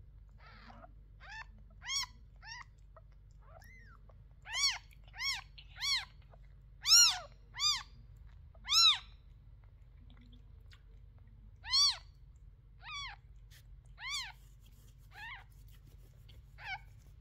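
Newborn kittens mewing: about fifteen short, high-pitched cries, each rising then falling in pitch, the loudest in the middle.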